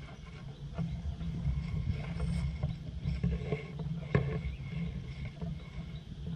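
Low, rumbling wind noise on a camera's microphone, with a few light knocks and clicks scattered through it.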